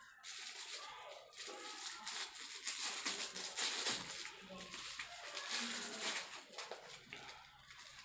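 Plastic wrapping and paper packaging crinkling and rustling as small parts are unwrapped by hand. It is loudest in the middle and eases off near the end.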